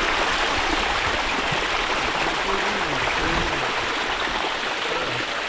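Waterfall water rushing and splashing over rocks close by, a steady loud rush.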